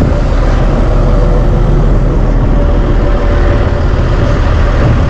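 Excavator's diesel engine running close by, a steady, loud rumble with a steady whine above it.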